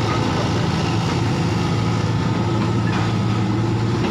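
Excavator's diesel engine running steadily at a constant, loud level.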